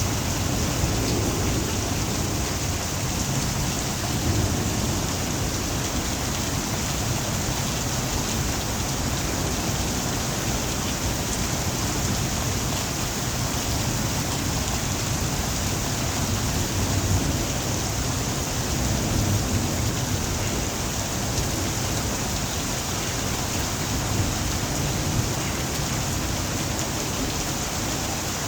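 Heavy rain of a thunderstorm falling steadily, with low rumbles of thunder swelling and fading now and then.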